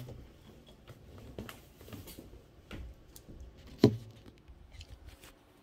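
Objects being handled: scattered light clicks and rustles, with one louder knock about four seconds in.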